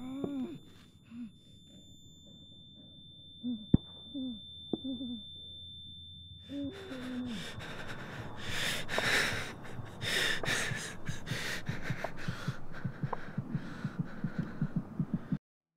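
An injured man's strained, wheezing gasps and groans, heard over a steady high ringing tone that stops about halfway through. A rushing noise then swells, quickening low throbs like a heartbeat come in near the end, and everything cuts off suddenly.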